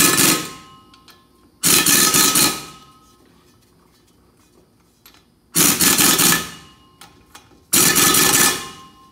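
Pneumatic impact wrench hammering bolts tight on the front driveshaft flange, in four loud bursts of about a second each with pauses between.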